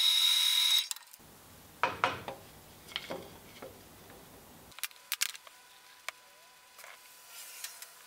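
A drill press boring into plywood, running with a high whine for about the first second before it stops. This is followed by a few light knocks of plywood pieces being handled.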